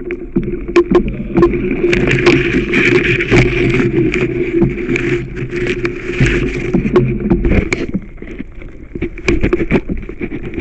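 Water splashing and sloshing around a canoe being waded through waist-deep water, with irregular knocks and bumps against the hull, over a steady rushing noise.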